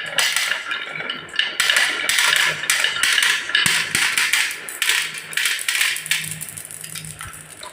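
Marbles rolling and clacking down a HABA wooden marble run: a dense, fast clatter of small clicks and knocks that thins out near the end.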